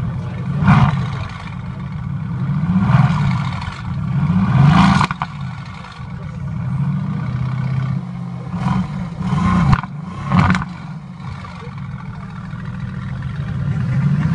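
Mercedes-AMG GT's twin-turbo V8 idling and being revved through its exhaust, about six blips that rise and fall, with three in quick succession near ten seconds in.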